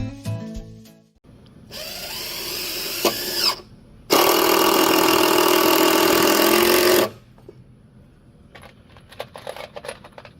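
Intro music ending about a second in, then a power tool running twice: first a short run with a rising whine, then a louder steady run of about three seconds. A few light knocks follow near the end.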